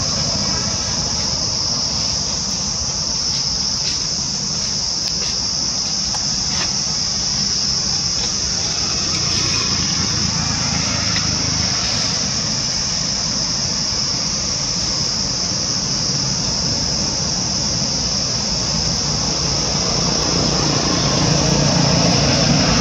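Insects outdoors keeping up a loud, steady, high-pitched drone, with a low rumble swelling near the end.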